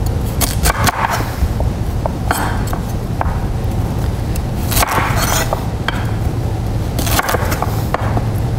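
Chef's knife cutting broccoli florets off the stalk on a wooden cutting board: irregular knocks of the blade on the board, some in quick clusters, with the crunch of the stems being cut. A steady low hum runs underneath.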